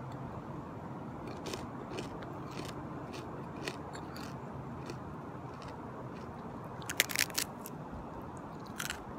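Crunching of a crisp fried tortilla (tostada) being bitten and chewed: scattered sharp crackly crunches, with a quick run of louder crunches about seven seconds in and another near the end.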